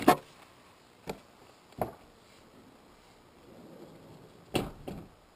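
Handling knocks on a radio-controlled car's plastic body shell, close to the camera: a loud knock at the start, single knocks about one and two seconds in, and a quick pair near the end.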